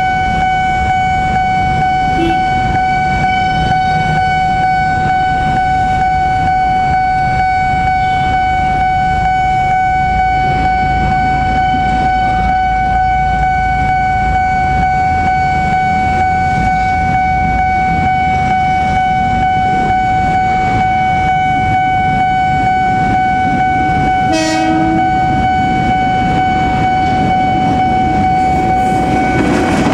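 Electric commuter train running along the line with a low rumble, under a steady high tone held throughout. A short falling sound comes about 24 seconds in.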